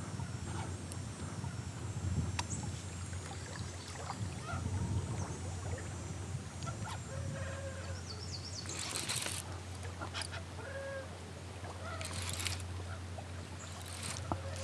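Hooked smallmouth bass splashing at the surface in brief hissing bursts about nine and twelve seconds in, over a steady low rumble. Faint short bird calls and a few small clicks are scattered through.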